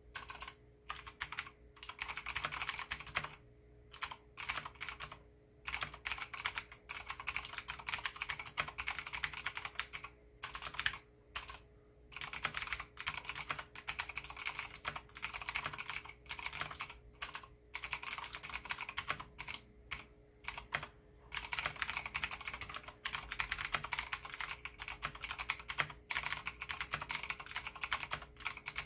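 Fast, continuous typing on a Leopold FC660M mechanical keyboard with clicky Cherry MX Blue switches and MDA-profile Big Bone keycaps. Rapid runs of sharp key clicks are broken by a few brief pauses.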